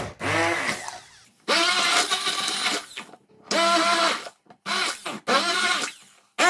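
Electric immersion blender pulsed in about five short bursts in a bowl of milk and fruit chunks, its motor pitch rising as each burst starts and dropping as it stops.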